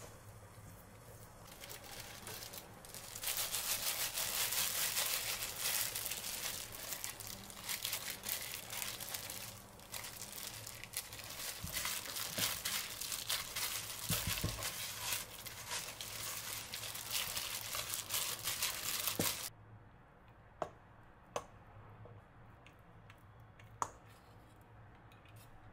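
Rustling, crinkling noise for about sixteen seconds that cuts off suddenly, followed by a few light clicks.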